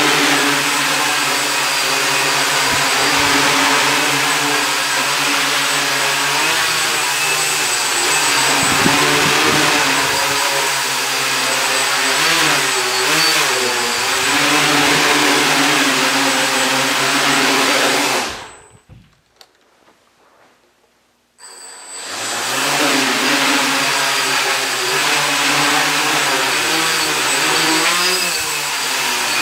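H-frame quadcopter's four DT700 brushless motors and propellers whirring in hover, the pitch wavering up and down as the throttle is worked. Just past the middle the sound dies away to near silence for about three seconds, then comes back at full level.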